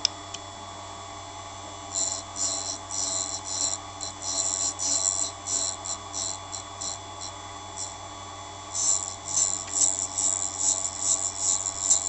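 Knife-grinding machine running with a steady hum. From about two seconds in, short high scraping hisses come and go several times a second as the grinding wheel bites along a knife blade, thinning out midway and coming thicker and louder near the end.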